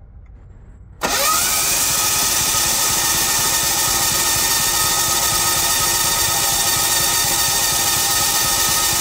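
Electric starter motor of a 186F single-cylinder diesel generator, fed from a jump starter, cranking the engine over with the decompression lever open: a loud, steady whir that cuts in suddenly about a second in. The engine is being spun to push fuel through the loose injector line, not to start.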